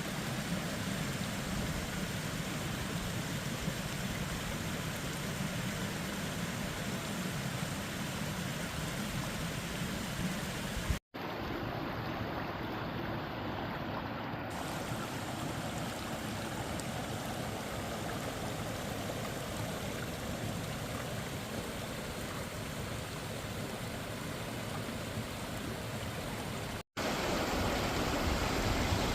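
Forest stream flowing steadily, a continuous rush of water. The sound cuts out for an instant twice, about 11 and 27 seconds in, and carries on slightly changed after each, as at a join between recordings.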